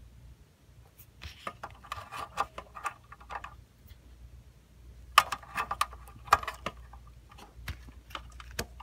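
Plastic clicking and scraping as a Mitsubishi FG-1E fluorescent glow starter is twisted in its socket by hand, in two rattling bursts with a few single clicks after, over a low steady hum.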